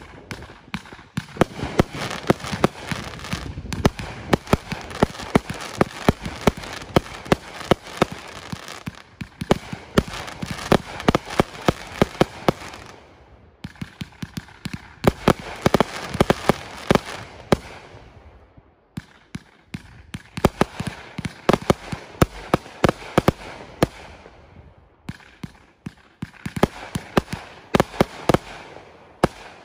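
Consumer fireworks cake from a 1500-gram finale box firing a rapid barrage of launches and aerial breaks. The sharp bangs come in several waves, with short lulls between them, over a constant hissing wash.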